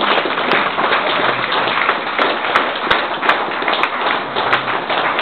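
A crowd applauding: dense, steady clapping with sharp individual claps standing out.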